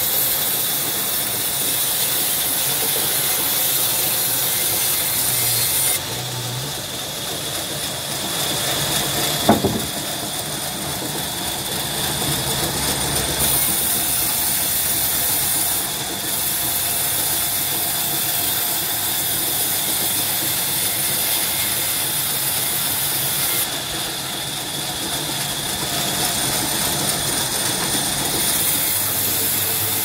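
Sawmill band saw ripping a crooked mango log lengthwise: a steady machine noise with a strong high hiss from the blade in the wood, the hiss dropping back and returning a few times. A single sharp knock about ten seconds in.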